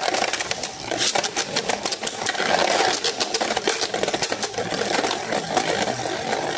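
Two Beyblade Burst Cho-Z tops spinning in a plastic stadium: a continuous rattling whir of their tips on the stadium floor, broken by many sharp clicks and knocks as they strike each other and the walls.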